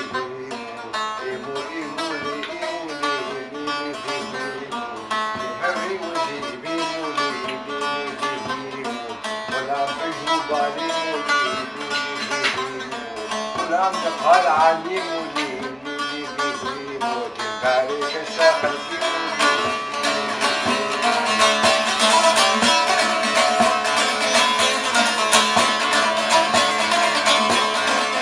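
Saz, a long-necked lute, played with a plectrum, picking out a winding melody. About twenty seconds in the playing turns louder and busier, with quick repeated strokes.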